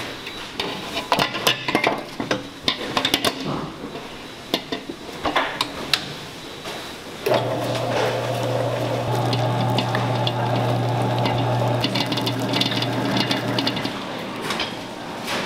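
Stainless steel mixing bowl clanking and knocking as it is fitted onto a commercial stand mixer, then about seven seconds in the mixer's motor starts and runs with a steady hum. Near the end, splashing and clinking as liquid is poured into a steel bowl.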